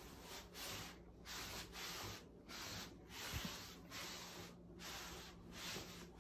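A towel being rubbed across a wet tiled floor under slipper-clad feet: about ten short rubbing swishes, one after another, with one sharper scrape about halfway through.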